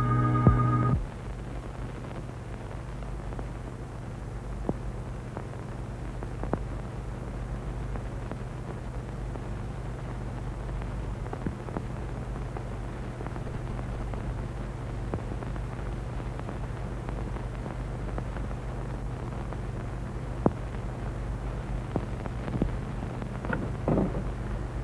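The last second of a flute-led music cue, which cuts off. It leaves the steady low hum and hiss of an old optical film soundtrack, with a few faint scattered clicks. Near the end comes a brief clatter as a metal tin is handled.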